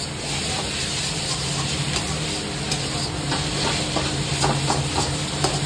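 Noodles stir-frying in a metal wok, sizzling steadily as a metal spatula tosses them, with a few sharp clicks and scrapes of the spatula against the pan.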